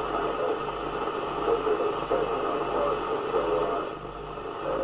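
Two-way CB radio conversation on channel 19 received by a Midland 77-805 FM CB set and played through an external extension speaker. The voices sound narrow-band and muffled over background hiss.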